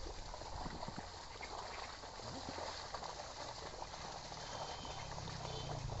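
Quiet outdoor field ambience: a steady hiss with scattered soft knocks and rustles and a faint low hum underneath.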